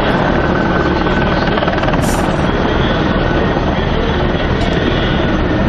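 A Mi-24-family (Hind) attack helicopter flying low past, its rotor and turbine engines making a loud, steady drone.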